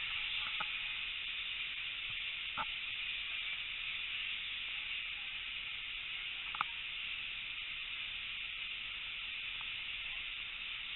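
Steady hiss of steam escaping from a standing steam locomotive, with a few faint knocks, the clearest about six and a half seconds in.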